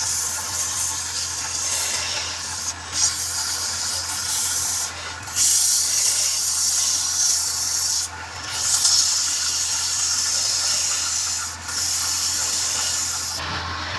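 Sandpaper held against a wooden workpiece spinning on a lathe makes a steady hiss. The hiss breaks off briefly four times as the paper is lifted and pressed back. The lathe motor's low hum runs underneath.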